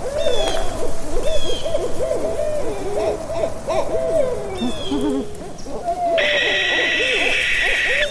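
Owls hooting, many bending calls overlapping one another, with a few short high chirps. A steady high-pitched buzz joins about six seconds in.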